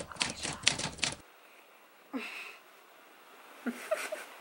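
Typewriter key clicks, about six a second, stop sharply just over a second in. Then come two faint, short, breathy groans from a woman being woken in bed.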